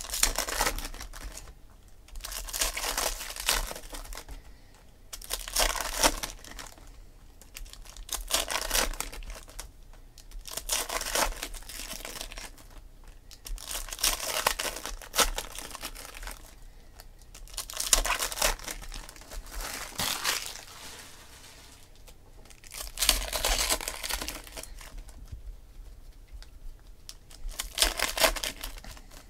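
Foil trading-card pack wrappers crinkling and tearing as packs are opened one after another, in bursts every two to four seconds.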